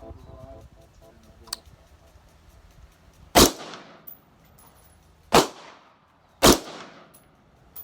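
Three single gunshots, the second about two seconds after the first and the third about a second later, each trailing off in a short echo.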